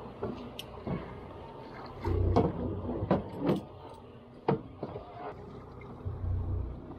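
Gear being handled on a boat deck: a handful of sharp knocks and clicks, with a couple of low dull thumps.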